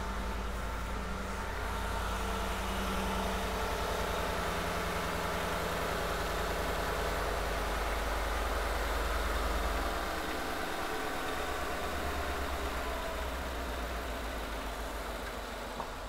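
Ford 5.0 V8 idling with one ignition coil unplugged, so one cylinder is not firing: a deliberately induced misfire. The low engine note shifts about ten seconds in.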